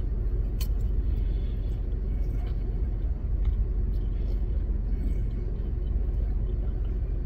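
Steady low rumble of a parked car idling, heard from inside the cabin, with a faint click about half a second in.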